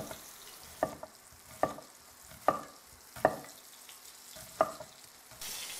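A wide kitchen knife slices an onion into rings, each stroke knocking on a plastic cutting board: six sharp chops, under a second apart. Underneath is the faint sizzle of calf's liver frying in a pan, which grows louder near the end.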